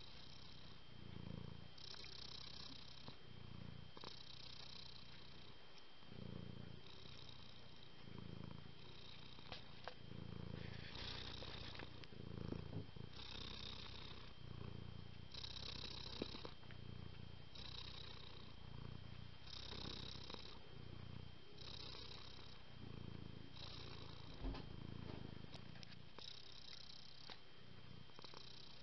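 Domestic cat purring close up, a steady rumble that swells and fades with each breath in and out, about once every second and a half to two seconds.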